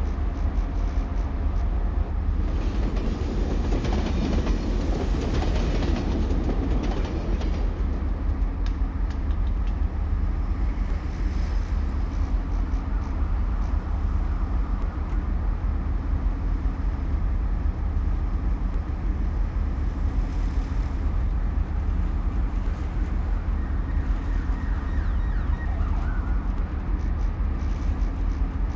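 City traffic ambience: a steady low rumble of vehicles, with one vehicle passing close and louder about three to seven seconds in.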